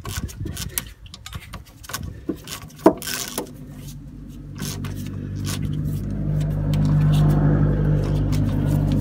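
A socket ratchet clicks and clinks with a hex bit on a brake caliper guide bolt, with one sharper metal knock about three seconds in. From about halfway a steady low engine hum of a running vehicle rises and holds, becoming the loudest sound.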